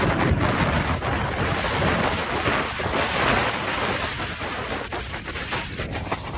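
Strong wind buffeting the microphone, a loud, steady rumble out on open pond ice.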